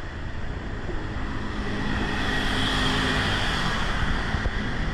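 Steady background noise with a low hum throughout, such as a running fan or engine.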